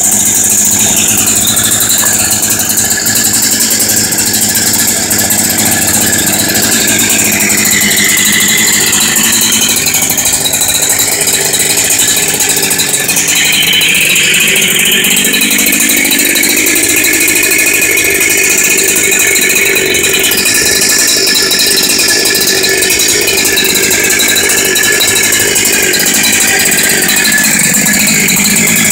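Husqvarna 372XP two-stroke chainsaw with a 52 mm big bore kit running at high revs. The engine pitch shifts and climbs noticeably about halfway through, then holds high.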